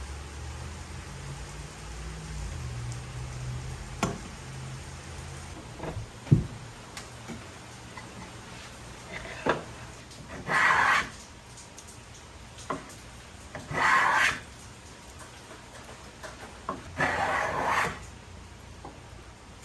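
A restored Millers Falls No. 16 block plane taking three strokes along wood, each about a second long, the blade cutting its first shavings. A few sharp knocks come before the strokes, the loudest about six seconds in.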